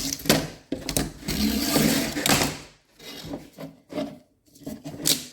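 Window screen mesh and its rubber spline being pulled out of a screen frame: two long stretches of scraping and rustling, then a few short knocks and clicks as the frame is handled.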